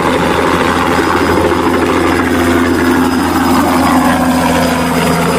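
Bell 206 JetRanger helicopter hovering low just after lift-off, its turbine engine and main rotor running steadily, with the pitch easing down slightly past the middle.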